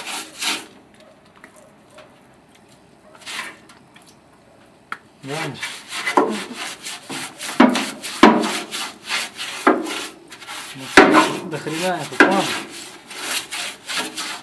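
A brush scrubbing rust converter onto rusty car-body sheet metal in short repeated strokes. The strokes pause for a few seconds, then start again about five seconds in, louder and with brief squeaks.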